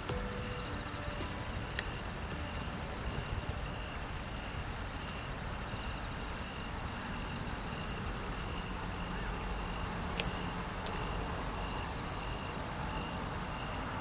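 Insects trilling: one steady high-pitched trill, with a lower chirp repeating about twice a second.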